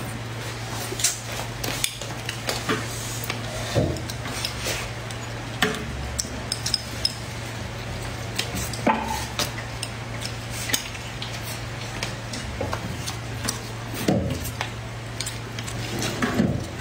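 Chopsticks clicking and scraping against a plate of braised fish and rice, with chewing in between, over a steady low hum.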